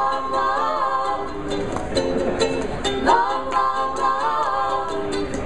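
Ukulele strummed in a steady quick rhythm, with a wordless melody over it that slides up into long, wavering held notes twice.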